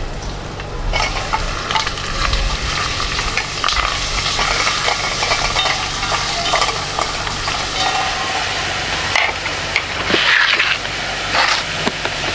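Food sizzling in a frying pan while being stirred, with the utensil scraping and clicking against the pan throughout and a few louder scraping spells near the end.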